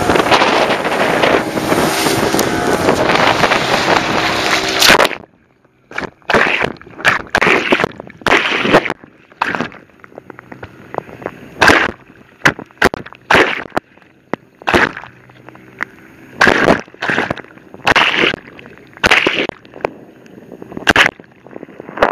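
A motorboat under way: the engine runs under wind buffeting and rushing water for about five seconds, then the sound drops abruptly. After that, bow-wave water slaps and splashes against the wooden hull at the waterline in irregular bursts, about two a second, with muffled gaps between.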